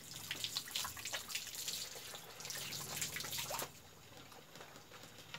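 Water running from a garden hose and splashing onto hands and wet concrete in irregular spatters. The splashing drops away about three and a half seconds in.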